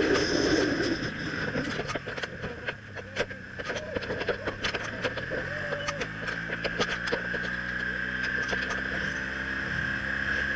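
BMW R1200CL's boxer-twin engine running steadily as the motorcycle climbs, under a rush of wind noise that is loudest in the first couple of seconds. A scatter of sharp clicks and ticks falls through the middle.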